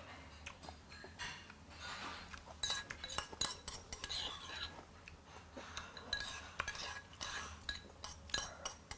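Metal chopsticks scraping and clinking against a small earthenware soup pot as the last of the soup is picked out. The clinks come thick and sharp from about two and a half seconds in.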